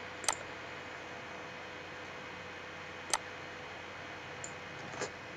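Computer mouse clicking: three sharp single clicks, the first shortly after the start, the next about three seconds in and the last near the end, with a fainter tick just before the last. A steady low hiss runs underneath.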